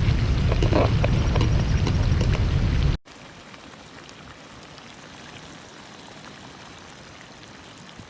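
Wind buffeting a GoPro microphone, a loud rumble with scattered clicks, cutting off abruptly about three seconds in to a steady faint hiss. This is the camera's audio dropping out in strong wind.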